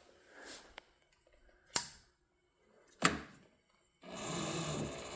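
Two sharp clunks about a second apart, then about four seconds in the vertical mill's X-axis table power feed motor starts and runs steadily.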